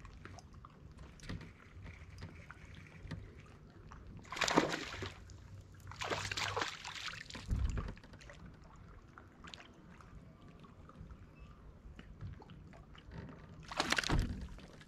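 Water sloshing against the boat hull, with several short splashes. The last splash, about a second before the end, is a hooked bass thrashing at the surface as it is lifted out. A dull thump comes around the middle.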